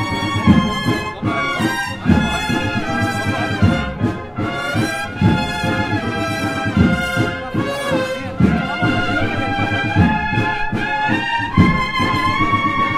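Brass band with drums playing a slow Holy Week processional march: held, swelling brass chords over a steady drum beat.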